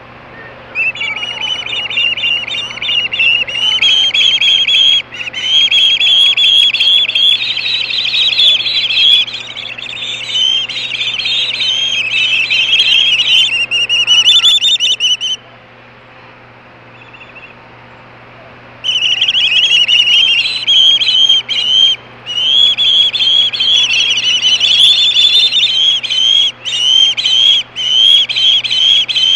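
Ospreys screaming on the nest: loud, rapid, repeated high-pitched calls from the chicks and the arriving adult. The calling starts about a second in, breaks off for about four seconds in the middle, then resumes.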